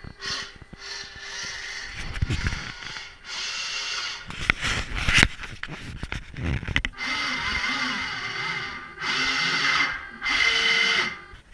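Small electric motor whirring in several separate bursts of about a second each, some with a wavering pitch, with knocks and rattles between them.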